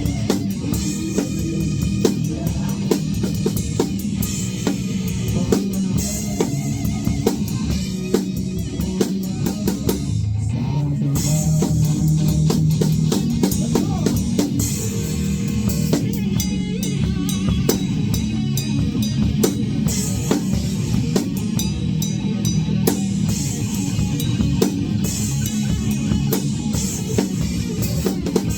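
A rock band's song playing, with a drum kit keeping a steady beat over guitar and bass.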